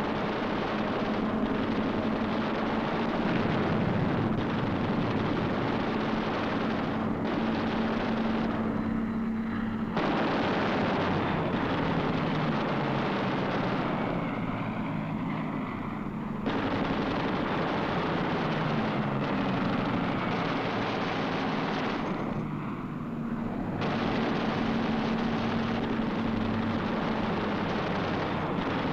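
Dubbed sound effects of a fighter plane's engine drone under rapid machine-gun fire. The sound cuts abruptly to a different take several times.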